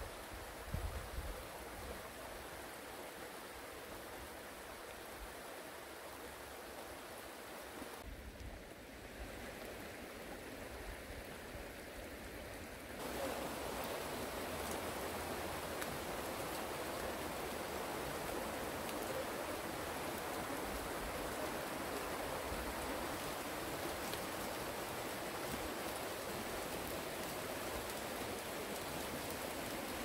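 Shallow stream running over a stony bed, a steady rushing of water that becomes clearly louder about thirteen seconds in.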